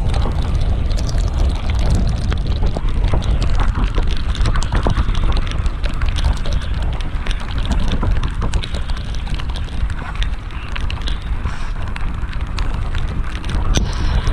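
Wind buffeting the microphone of a mountain bike ridden over rough ground, a heavy low rumble with frequent sharp knocks and rattles.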